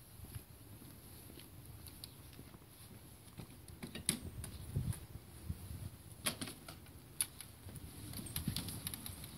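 Scattered light clicks, knocks and rattles with a low rumble: a bicycle towing a wheelchair-carrying trailer being set moving, its metal frame and wheels rattling over asphalt. The sharpest knocks come about halfway through.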